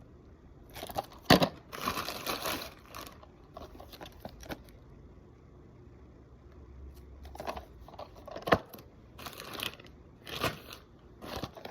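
Packaging being torn open and crinkled by hand in several spells, with a sharp snap or click twice.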